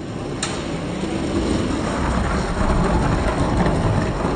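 Two diecast toy monster trucks rolling down a long orange plastic Hot Wheels track: a rumbling roar that slowly builds in loudness as they pick up speed, with a sharp click about half a second in.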